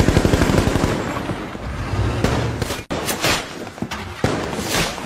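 Battle gunfire: a rapid run of automatic fire in the first second, then single shots at irregular intervals, some with a ringing echo.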